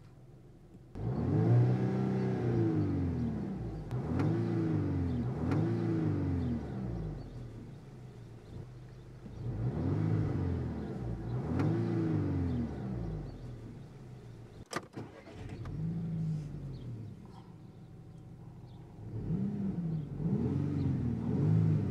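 Volkswagen turbocharged four-cylinder petrol engine being revved while the car is standing still: about eight quick blips of the throttle, each one rising and falling in pitch, with the engine settling back to idle between them. A single sharp click comes about two-thirds of the way through.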